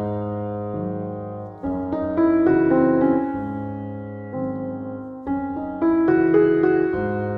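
Background piano music: a gentle melody of struck notes over sustained low chords, its phrase repeating every few seconds.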